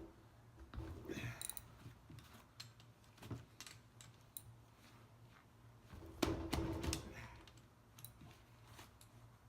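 Ratchet wrench with a 1/2 inch socket clicking and metal tools knocking while the bolts of a semi-hermetic compressor are loosened. There is a louder metallic clatter about six seconds in.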